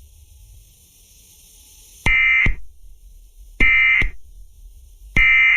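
Emergency Alert System digital data bursts: three short, shrill, buzzing chirps about a second and a half apart, the end-of-message code that closes an alert. They are preceded by a faint static hiss.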